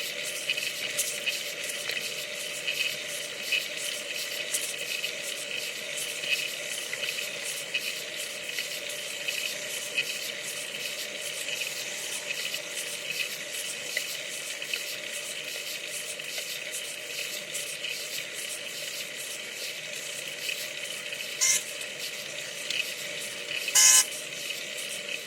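Car horn honking at a cyclist: a short honk about 21 seconds in, then a longer, louder honk a couple of seconds later. Under it runs a steady hiss of road and wind noise.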